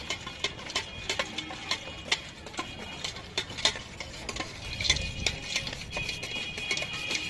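Utensils clicking and tapping irregularly against a bowl as food is stirred and mixed at a street food stall, with a steady high-pitched whine in the background.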